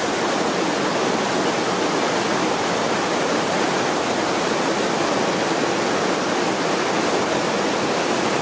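Njupeskär waterfall, water plunging down a high cliff, heard up close as a steady, loud rush of falling water.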